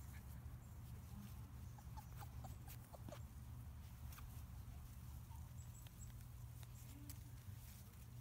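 Faint sounds of four-week-old Labrador puppies at play on grass: a few soft squeaks and small clicks and rustles over a low steady rumble.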